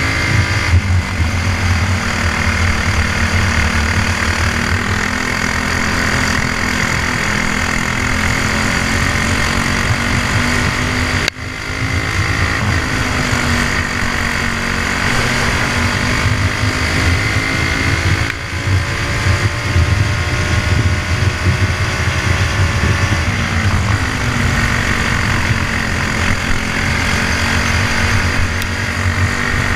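Briggs & Stratton Jr. Pro Gas Animal single-cylinder four-stroke kart engine running hard, heard on board the kart, its pitch falling and rising as it brakes and accelerates through the corners. The sound drops out for a moment about eleven seconds in.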